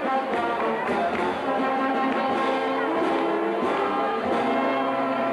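A brass band playing a tune, with held, layered brass notes.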